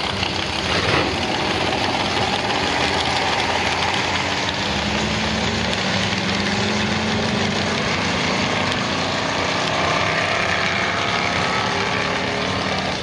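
A 1955 Ford Thunderbird V8 and a 2020 Honda Accord 2.0T turbo four-cylinder running flat out side by side in a drag race, their engine notes climbing in pitch as they pull away down the strip.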